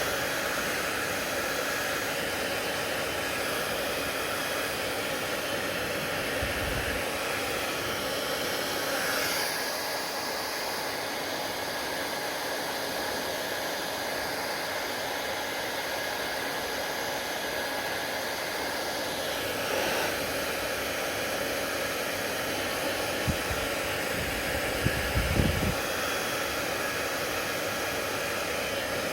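Hair dryer running steadily, a constant airy rush with a faint steady whine in it. Its sound shifts briefly about ten and twenty seconds in, and a few soft knocks come near the end.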